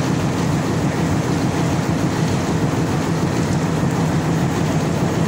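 Diesel locomotive engine idling, a constant low drone.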